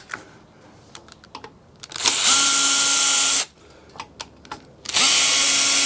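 Power drill-driver spinning twice, about a second and a half each time, with a steady hum, backing out small flimsy screws at slow speed. Light clicks and taps come before each run.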